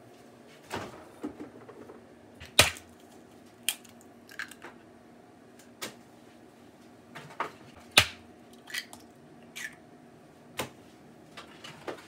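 Kitchen clatter: a dozen or so scattered clicks and knocks of utensils and containers being handled, at uneven spacing, with two louder knocks, one near the start and one about two-thirds of the way through.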